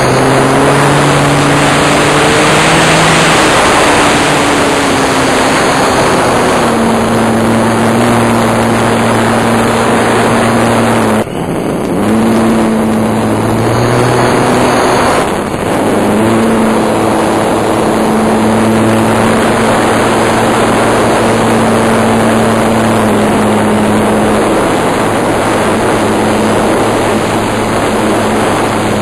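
RC airplane's motor running, heard up close from a camera mounted on the plane, with air rushing over the microphone. The motor's pitch shifts with the throttle and drops away briefly twice, about 11 and 15 seconds in.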